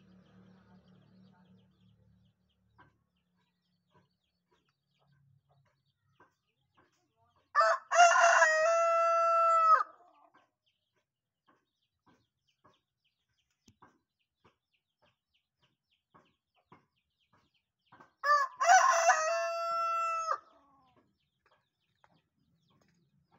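Rooster crowing twice, about ten seconds apart. Each crow opens with a few short, broken notes and ends in a long, steady held note of about two seconds that cuts off sharply: the drawn-out crow prized in rooster crowing contests.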